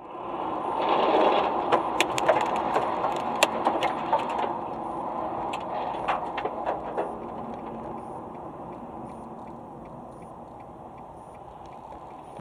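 Road and tyre noise inside a moving car on a motorway. It is loudest in the first few seconds, with scattered sharp clicks and knocks, then eases to a steadier hum. A faint light tick repeats about every two-thirds of a second through the second half.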